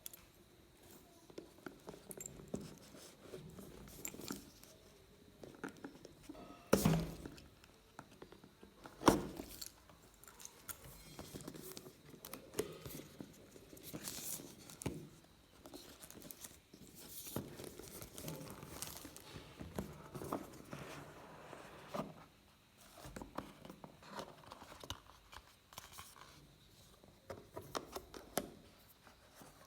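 Hands unpacking a phone box: rustling and tearing of paper and plastic wrapping, with scattered small clicks and two louder knocks about seven and nine seconds in.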